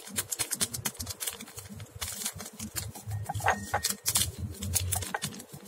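Instant coffee mix being poured from a paper sachet into a glass: a rapid, irregular patter of small ticks and crackles as the powder and the packet move.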